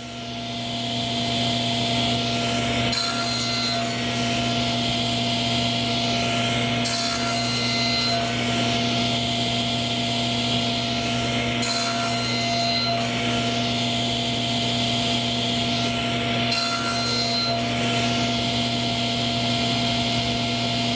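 Table saw running, its motor hum climbing over the first two seconds as the blade comes up to speed, then steady. The blade cuts into a board pushed on a miter gauge in four passes a few seconds apart, nibbling out the waste of a lap joint.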